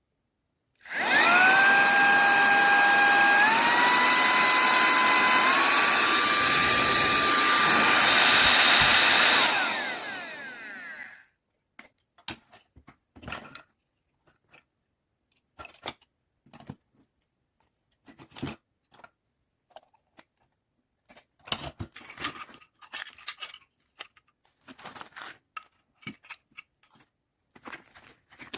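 Cordless handheld vacuum cleaner's small high-speed motor running with a loud rushing noise and a whine that steps up in pitch twice, as it is switched up through its speed settings. It is switched off after about nine seconds and spins down, followed by scattered light clicks and handling knocks.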